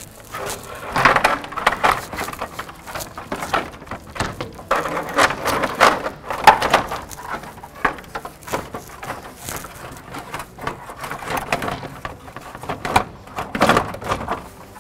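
A replacement radiator with plastic end tanks being fished down into a car's engine bay: irregular scraping and rustling as it rubs past surrounding parts, with scattered knocks.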